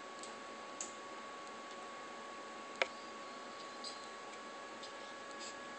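Faint background hiss with a thin steady hum and a few small ticks, one sharper click about three seconds in.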